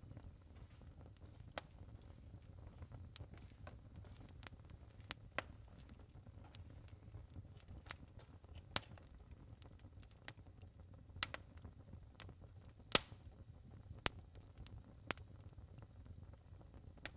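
Wood fire burning in a fireplace, crackling and popping at irregular intervals over a low steady rumble, with one loud pop about thirteen seconds in.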